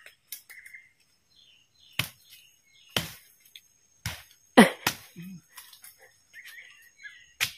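About six sharp, irregular chopping strikes from a hand tool digging into the ground at the base of a bamboo clump, the loudest a little after halfway. Faint bird chirps sound between the strikes.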